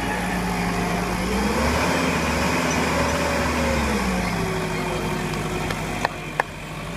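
A vehicle engine running, revving up about a second and a half in, holding, then easing back to a steady run. Two short sharp clicks come near the end.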